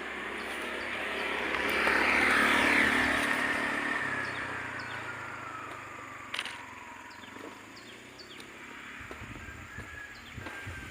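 A motor vehicle passes by: its sound swells to a peak two to three seconds in, then fades as its pitch falls. A single sharp click comes about six seconds in.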